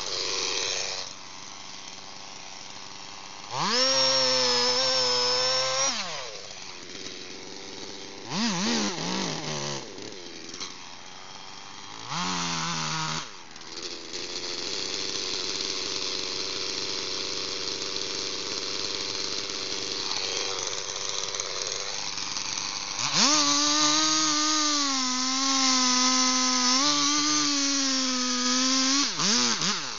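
Stihl two-stroke chainsaw, throttled up to a high steady scream for a couple of seconds, then blipped briefly twice and left idling. Near the end it is run at full throttle for several seconds, sawing into a large trunk on the back cut opposite the felling notch.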